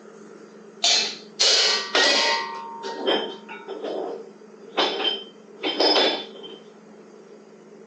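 A series of about six separate metallic clanks and creaks, some ringing briefly, as hard mechanical parts are moved or handled.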